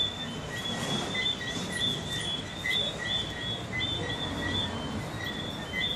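A steady series of short, high chirps at two pitches, about two or three a second, from a small animal calling in the background, over a faint room hum.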